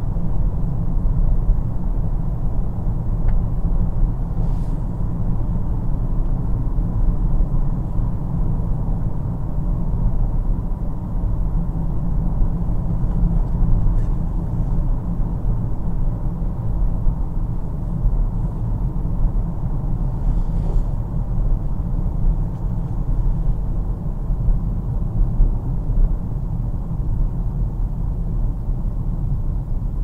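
Car driving at a steady pace: a constant low rumble of road and engine noise.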